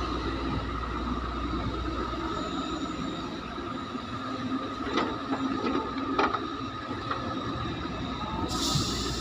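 CASE hydraulic excavator working, its engine and hydraulics running steadily with a held whine. A couple of sharp knocks come a little past the middle, and a short hiss comes near the end.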